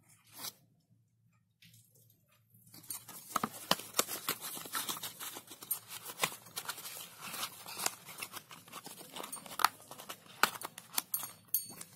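Paper and cardboard packaging being handled: crinkling, rustling and small crackles. The handling is quiet for the first few seconds, then dense and irregular from about three seconds in.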